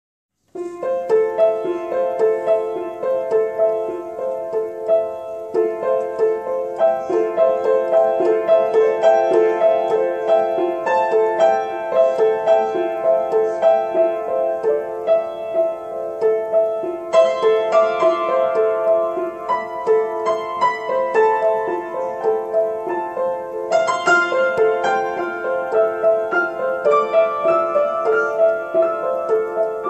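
Solo piano improvisation: a flowing stream of overlapping notes in the middle register, starting about half a second in. Higher notes join in twice later on.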